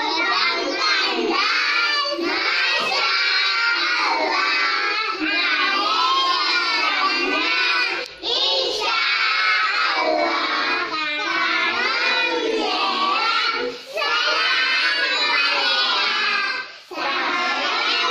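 A group of young children singing a song together, loud and unaccompanied, with three short breaks between lines.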